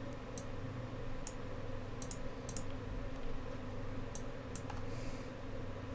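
Scattered sharp clicks of a computer mouse and keyboard, about eight, some in quick pairs, over a steady low hum.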